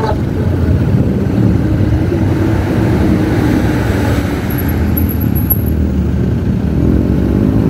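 Motorcycle engine and road noise while riding, a steady low rumble; near the end the engine note rises as the bike picks up speed.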